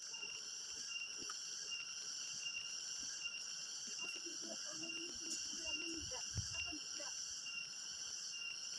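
A chorus of insects buzzing steadily, several high pitches held at once, with faint distant voices about halfway through.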